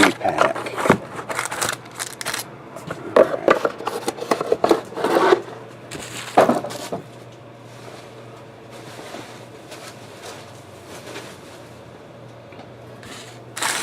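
Trading card packs and cards being handled: scattered taps, rubs and scrapes for about seven seconds, then only faint handling over a low steady hum.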